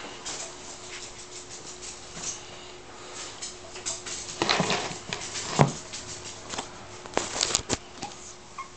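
Light scattered taps and scratches of a three-week-old puppy's paws and nose moving on a woven placemat right at the microphone, with a few louder knocks about four and a half to five and a half seconds in and again just after seven seconds.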